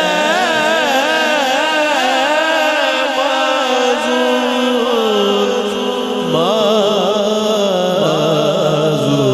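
Male naat reciter singing a long, wordless, ornamented melodic passage with wavering vibrato notes, over a steady sustained vocal drone.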